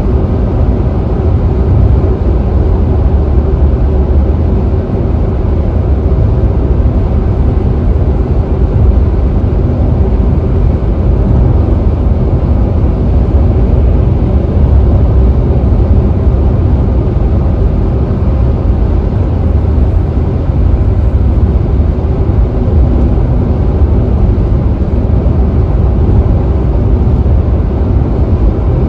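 Steady low rumble of a car cruising at freeway speed, heard from inside the cabin: tyre, road and engine noise.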